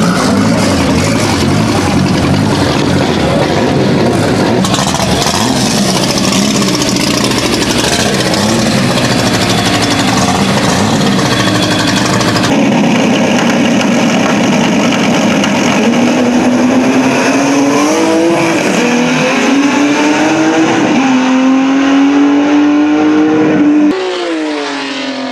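Rear-wheel-drive drag cars revving hard at the start line, then a car accelerating down the strip at full throttle, its engine pitch climbing and dropping back at each gear change. Near the end the engine note falls away.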